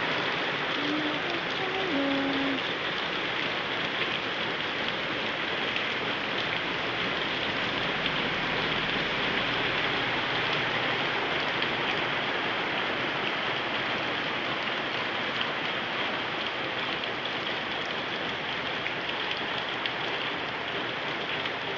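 Heavy rain falling steadily, spattering on the pavement and the wet street.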